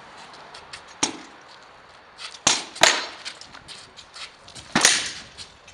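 Swords striking wooden shields in a sword-and-shield bout: four sharp blows, one about a second in, two in quick succession in the middle, and one near the end that rings on a little longer, with lighter knocks between.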